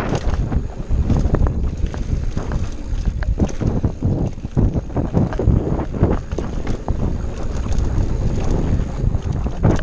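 Wind buffeting the microphone over the rumble of a Scott Ransom mountain bike's knobby tyres on a fast dirt-and-gravel descent, with frequent clicks, knocks and rattles as the bike goes over bumps.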